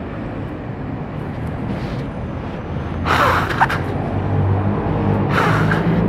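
Street traffic: a low vehicle engine hum that grows louder in the second half, with two short bursts of hiss about three and five and a half seconds in.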